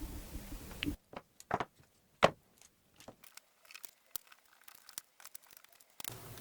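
A series of small sharp clicks and taps from handling the parts of a Makita impact driver during its restoration, the loudest a knock about two seconds in; a steady hiss drops out about a second in and returns near the end.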